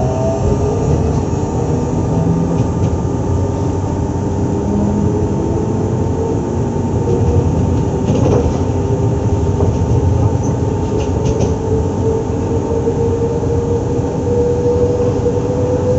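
Z2N double-deck electric multiple unit (Z 20851) standing at the platform with its on-board equipment running: a steady, loud electrical and mechanical hum, with a faint tone slowly rising in pitch in the second half.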